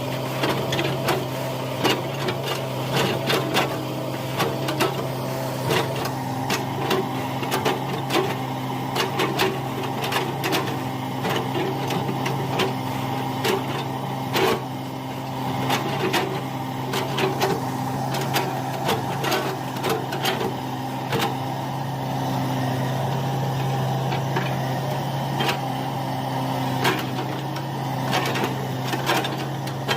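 Hitachi excavator's diesel engine running steadily, with frequent irregular sharp knocks and clatter from the machine at work.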